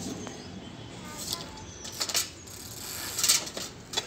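Light metallic rattling and clinking from a child's bicycle with training wheels as it is pedalled and jolted. It comes in a few short bouts, the loudest about three seconds in.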